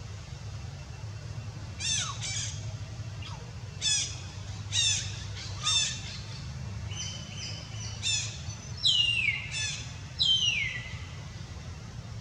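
Young macaque giving a series of shrill squeals, each falling in pitch, the longest ones near the end.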